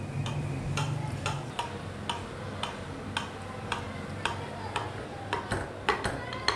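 Light, regular ticking, about two ticks a second, over a low steady hum.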